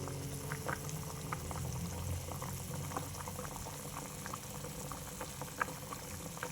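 Food bubbling in a pan as it simmers, with many small irregular pops.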